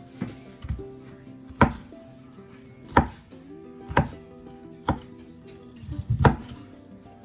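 Knife chopping broccoli on a cutting board: about eight sharp knocks at uneven spacing, roughly one a second.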